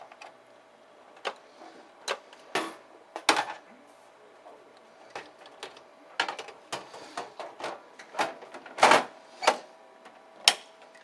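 Irregular clicks and knocks of server hardware being handled and fitted, the loudest a pair of sharp knocks near the end, over a faint steady hum.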